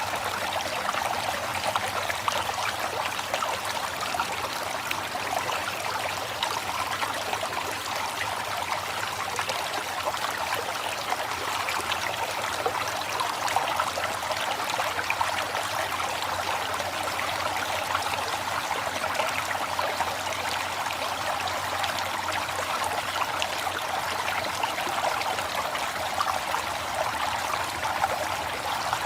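River water flowing steadily, an even, continuous babble with no breaks or separate splashes.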